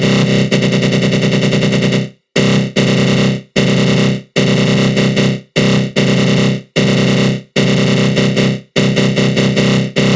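Synthesized 'attack growl' sound effect: a harsh, buzzing synth tone with a rapid flutter from a flanger. It sounds continuously for about two seconds, then breaks into a string of short growls with brief silent gaps, and the growls grow shorter and quicker near the end.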